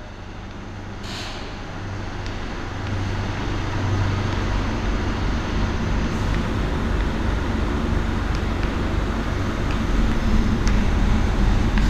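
Motor vehicle engine running steadily, a low rumble with a hum that grows louder over the first few seconds and then holds. Faint taps of chalk on a chalkboard sound over it.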